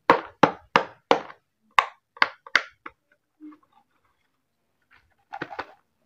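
Cardboard boxes of bar soap knocked and tapped by hand and fingernails: seven sharp taps in the first three seconds, then a quick cluster of clicks near the end as a box is picked up.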